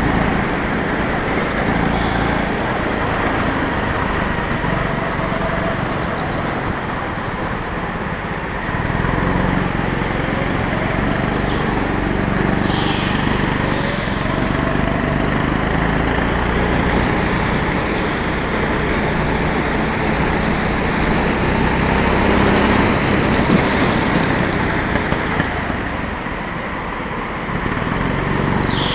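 Go-kart engine running hard, heard from on board the kart, its pitch rising and falling as the throttle opens and lifts for corners. It drops back about eight seconds in and again near the end. Short high squeals come through in a few of the turns.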